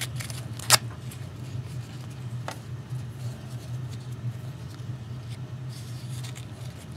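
Benchmade Mini Griptilian folding knife cutting through plastic strapping: a sharp snap about a second in as the strap parts, and a lighter click a couple of seconds later, over a steady low hum.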